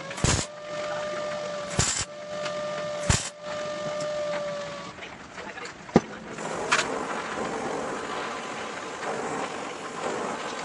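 MIG welder arc: three short tack welds, each a brief crackling burst, in the first few seconds, with a steady whine underneath, then a longer continuous weld run of about four seconds in the second half.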